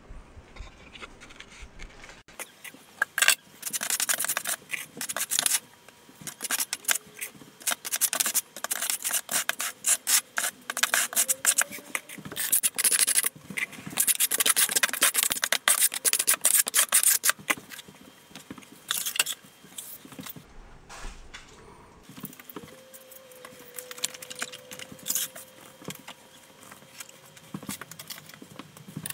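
Steel trowel scraping and spreading polymer-modified thinset mortar across a drywall backsplash in quick, repeated strokes, combing it into ridges for setting glass tile. The strokes thin out and grow quieter in the last third.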